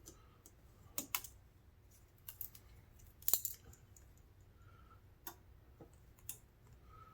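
Light, sharp clicks and taps every second or so, the loudest about three seconds in: a spudger prying the battery and flex-cable connectors off a phone's logic board.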